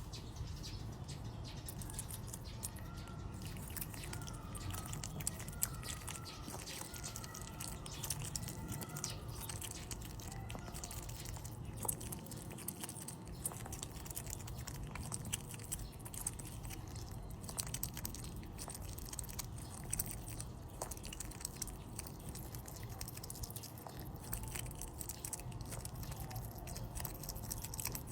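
An otter eating fish: wet chewing and lip-smacking with many sharp, irregular clicks, and a few faint high squeaks in the first third.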